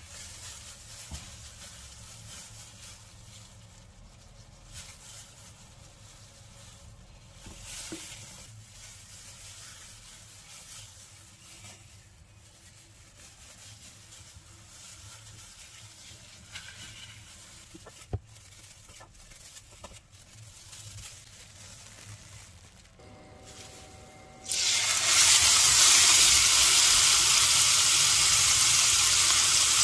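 Faint handling and rubbing sounds while a raw chicken breast is seasoned with pepper on a wooden board. About 24 seconds in, the chicken breast goes into a pan of hot oil and starts sizzling loudly and steadily.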